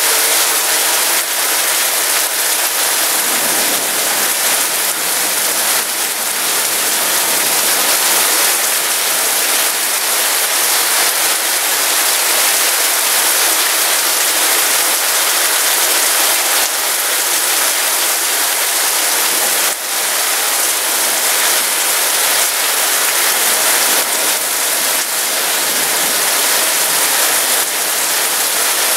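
Heavy storm rain pouring down in a steady, loud hiss.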